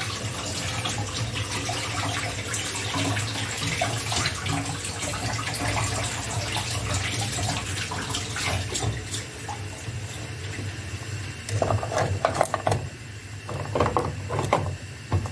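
Water bubbling in a steel pot of giant land snails on a gas stove, a steady hiss with small pops. About twelve seconds in, louder clatter and splashing as a hand shifts the snail shells in the water.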